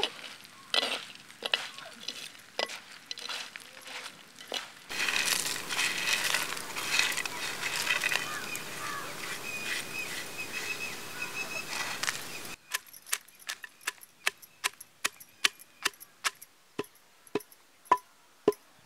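Wooden pestle pounding roasted whole spices in a stone mortar: sharp, regular knocks about two a second through the last third. Before that, a spoon clinks and scrapes in a metal pan, followed by a stretch of steady noisy hiss.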